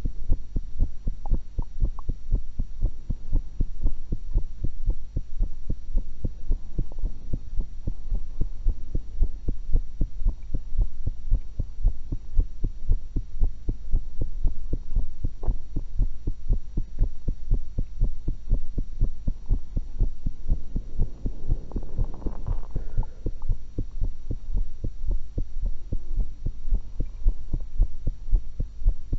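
Human heartbeat heard through a stethoscope: a steady, even run of beats that is strongest in the deep bass. About two-thirds of the way in, a brief rumble rises over the beats.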